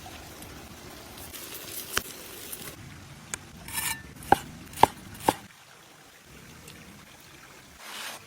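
Cooking utensils knocking during food preparation: a few scattered sharp taps, then three louder knocks in quick succession about four to five seconds in, each with a brief ring.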